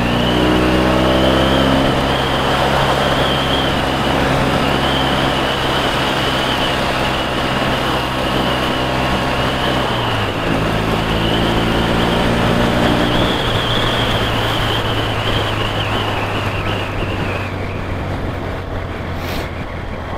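Motorcycle engine under way, its note climbing as it accelerates and then holding steady, dropping at a gear change about ten seconds in and climbing again, then fading under steady road and wind noise as the throttle is eased off a few seconds later.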